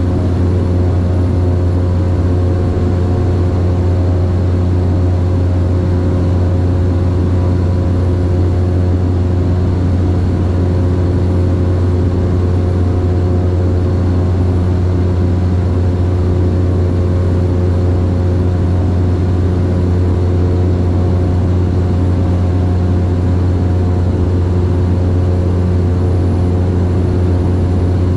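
Cessna 208 Grand Caravan's single PT6A turboprop engine and propeller droning steadily in flight, heard from inside the cabin. It is a loud, unchanging low hum with evenly spaced overtones over a wash of noise.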